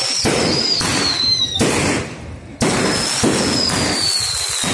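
Aerial fireworks going off in a dense run of bangs and crackle. Twice a high whistle slides down in pitch.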